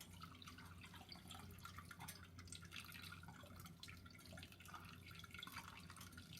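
Faint, irregular drips of brewed coffee falling from the Bodum pour-over's fine mesh filter into the carafe below, as the water drains through the grounds after the pour.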